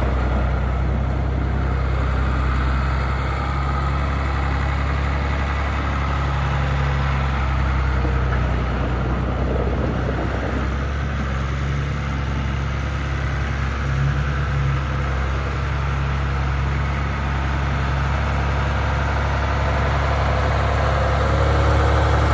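John Deere 2840 tractor's six-cylinder diesel engine running steadily at low speed as the tractor drives slowly around. It gets a little louder near the end as the tractor comes close.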